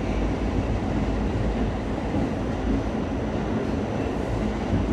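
An R46 subway car running along the track, heard from inside the car: a steady rumble of wheels and running gear.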